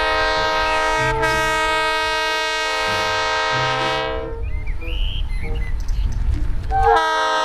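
Diesel locomotive's air horn blowing several notes at once in long blasts, with a brief break about a second in, until about four seconds in. Then comes a rough rumble as the locomotive plows through deep snow, and the horn sounds again near the end.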